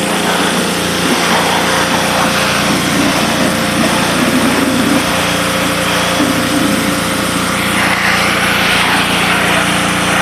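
Pressure washer running steadily, with the hiss of its water spray hitting the bikes; the spray hiss grows louder about eight seconds in.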